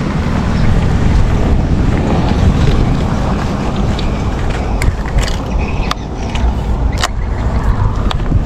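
Wind buffeting the microphone: a loud, steady low rumble, with a few sharp clicks in the second half.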